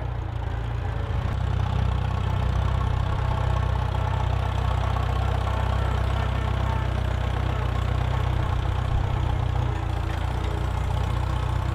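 David Brown Cropmaster tractor engine running steadily as the tractor drives across grass, a little louder from about a second in.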